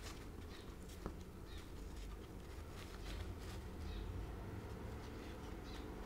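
Fingers spreading and smoothing wet plaster over a carved foam diorama base: faint rubbing and soft scraping, with a small tap about a second in.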